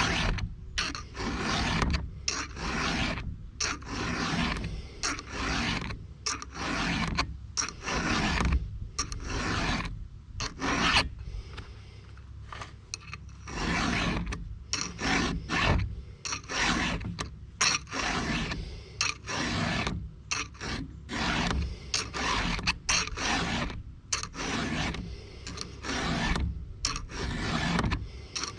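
Hand file rasping across the cutters of a chainsaw chain in repeated short strokes, about one a second, with a brief pause around twelve seconds in: the chain is being sharpened.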